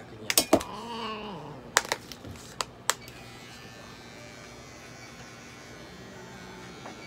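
A few sharp clicks and a short falling pitched sound, then a small electric pet clipper running with a steady low hum while it trims a long-haired cat's fur.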